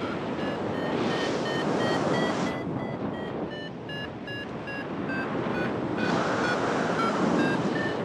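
Wind rushing over the microphone, with a flight variometer beeping, short beeps about three a second whose pitch dips a little midway and then rises again. The beeping is the instrument's sign that the glider is climbing.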